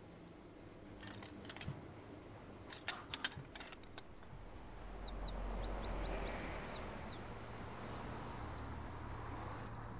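A few light clicks and knocks, then birds chirping with short gliding calls and a fast trill near the end, over a low steady background rumble.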